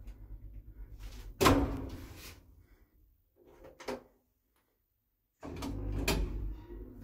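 Sliding doors of a 1984 ZREMB 'Osiedlowy' lift cab bang shut about a second and a half in, followed by a smaller click. After a short dead silence the lift's drive starts with a low steady rumble and a clunk near the end.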